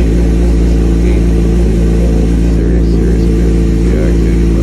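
2003 Suzuki GSX-R750's inline-four engine idling steadily after a fresh oil change and new spark plugs.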